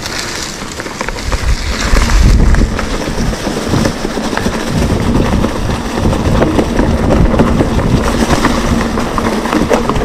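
Mountain bike riding fast down a dry dirt trail covered in fallen leaves: tyres crunching over the leaves and the bike rattling, with heavy wind buffeting the microphone. It gets louder about two seconds in.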